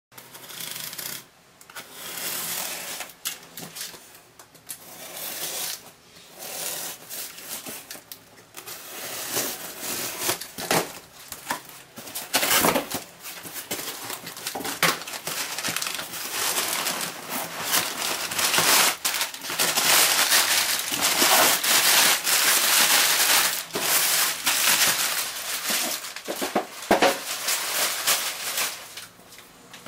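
Cardboard shipping box being opened by hand: a cutter slitting the packing tape, the flaps scraping open, and crumpled brown packing paper crinkling as it is pulled out, the crinkling densest in the second half.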